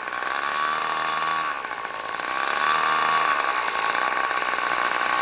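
The OS 91 FX two-stroke glow engine of a radio-controlled Curare model airplane running as the plane taxis along the runway. It is a steady, high buzz that gets louder as the plane comes closer.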